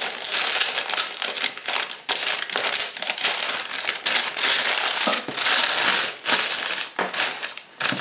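Packaging crinkling and rustling as items are handled and taken out of a cardboard box, with a few short knocks.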